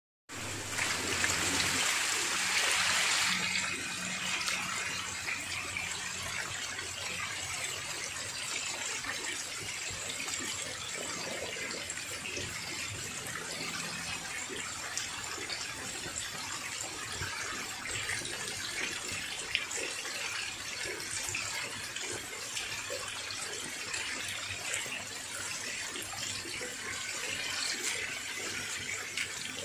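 A crowded mass of lele catfish (Clarias) churning at the water surface: steady wet splashing with many small crackles and pops, louder for the first few seconds.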